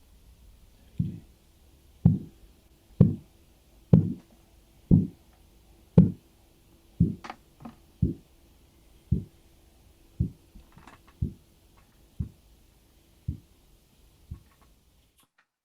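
Korotkoff sounds heard through a stethoscope as the blood-pressure cuff deflates: a regular low thump about once a second. The thumps are strongest in the first few seconds, then grow weaker and die away near the end. Their disappearance marks the diastolic pressure.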